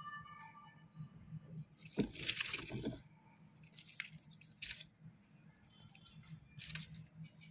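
Faint scratchy rustling of a Roborovski dwarf hamster scrambling on cardboard and in its plastic exercise wheel: a longer scuff about two seconds in, then a few short ones.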